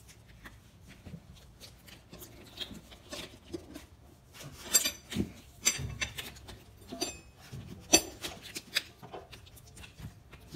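Rubber tire bead being pushed and worked onto a metal dirt bike rim by hand, lubricated with spray: irregular rubbing and squeaks with light knocks of the wheel.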